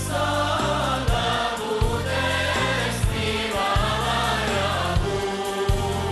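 Choir singing with live band accompaniment: held bass notes and a drum beat under the voices.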